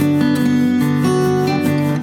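Background music led by acoustic guitar, strummed and plucked.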